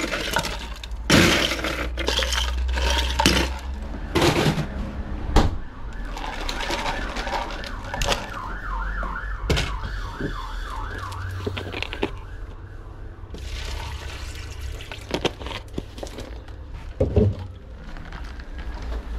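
Ice cubes clattering and knocking as they are scooped from a freezer drawer into a plastic cup. Then, from about six seconds in, a fast run of glugs as water pours from a large plastic water bottle, and a few more knocks near the end.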